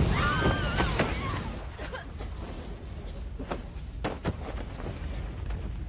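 Film sound effects: the low rumble of a huge explosion dying away over the first couple of seconds, with wavering high-pitched glides in the first second or so, then a few sharp thuds.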